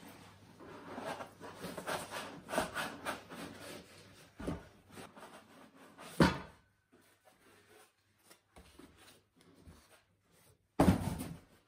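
Cardboard shipping box and foam packing being handled: rustling and scraping of cardboard as hands work inside the box, a sharp thump about six seconds in, and another thump near the end as the box is lifted off the foam-packed instrument.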